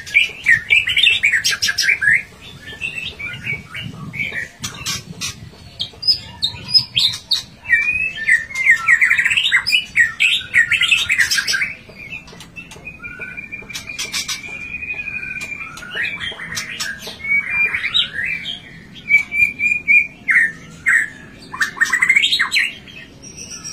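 White-rumped shama singing a varied song of loud whistled phrases and quick trills, with one long steady whistle about halfway through and sharp clicks between phrases.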